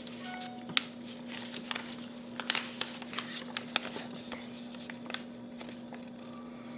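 Sheet of origami paper rustling and crinkling in short, irregular crackles as a flap is lifted and folded up to a crease, over a steady low hum.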